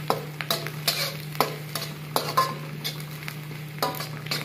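Spatula scraping and knocking against a kadai (wok) while stir-frying chopped cabbage, carrot, capsicum and egg, about two or three strokes a second, over a light sizzle. A steady low hum runs underneath.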